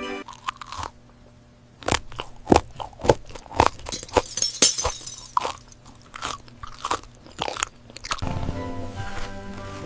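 Close-miked crunching and chewing of crisp food, a dozen or so irregular sharp crunches, as in eating ASMR. Background music comes back near the end.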